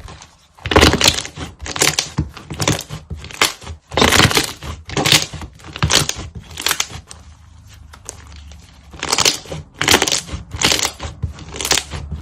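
Slime being squeezed and pressed by hand, a series of wet, crackling squishes about two a second, pausing briefly a little past the middle.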